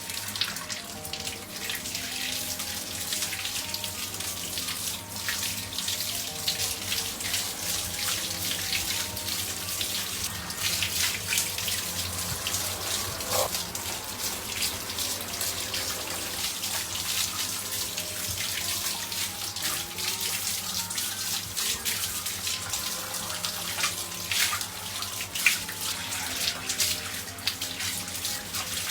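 Running water hissing as a dog is washed during its bath, with light background music.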